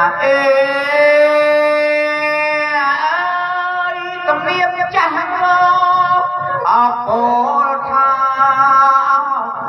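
A man singing a traditional Khmer wedding-ceremony song through a microphone, drawing out slow notes for up to about three seconds with glides between them, over a steady instrumental backing.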